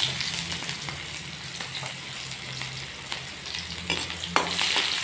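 Sliced onions sizzling in hot mustard oil in a kadai, with a spatula scraping and stirring them against the pan; there is a louder scrape about four seconds in.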